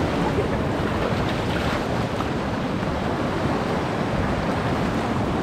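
Waves breaking and washing in among rocks on a sandy shore, a steady rush of surf.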